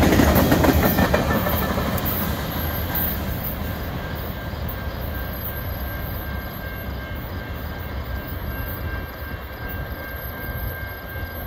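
Tail end of a long freight train's cars rolling past on steel wheels, loud at first and fading over the first few seconds as the train pulls away, leaving a steadier, lower rumble from the receding cars.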